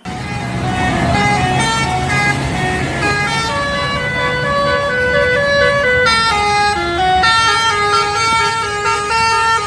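Indonesian bus 'telolet basuri' multi-tone horn playing a melody of held notes that step up and down in pitch, starting suddenly and loud. Under it runs a low steady rumble.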